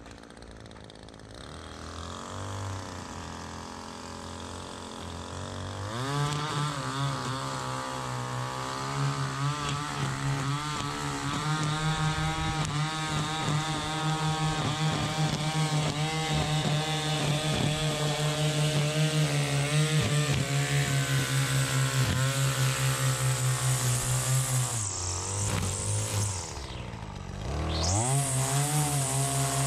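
Gas string trimmer engine edging the lawn. It is faint at first, revs up about six seconds in and grows steadily louder as it comes closer. Near the end the throttle drops off for a moment and is then revved back up.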